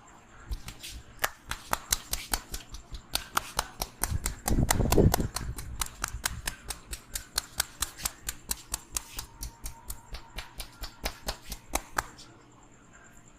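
Percussive head massage by a barber's hands: a steady run of sharp slaps or taps, about four a second, that stops near the end. A louder low rumble cuts in about four seconds in and lasts about a second.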